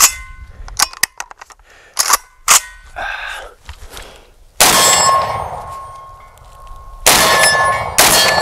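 Metallic clicks and clacks of a JTS AR12 semi-automatic 12-gauge shotgun being handled, then three loud shotgun shots, the last two less than a second apart. A clear metallic ring, as of hit steel, hangs on after the shots.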